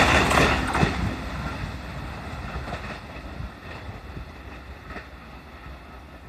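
E657-series limited express electric train going away after passing the level crossing, its rail noise fading steadily over several seconds.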